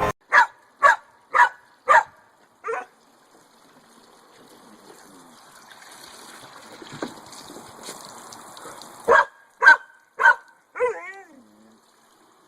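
A dog barking in two runs: five sharp barks in the first three seconds, then three more about nine seconds in, ending in a short wavering whine. Between the runs a faint hiss of spraying water.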